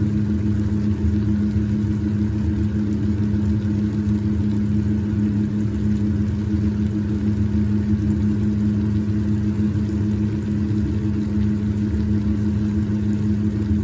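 Steady low mechanical hum of restaurant kitchen machinery, holding one constant pitch without change.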